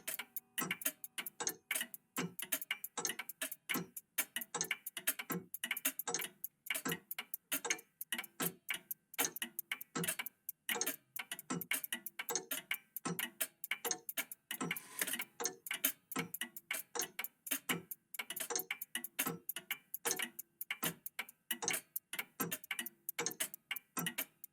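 Old mechanical clocks ticking together, their ticks overlapping in a dense, uneven pattern of several ticks a second.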